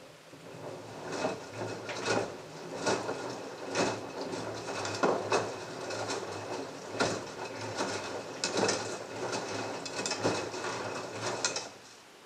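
LG front-loading washing machine drum turning during the soak stage of a wash. Wet clothes tumble and water sloshes, with irregular thuds and splashes over a steady motor hum. It starts just after the beginning and stops about a second before the end.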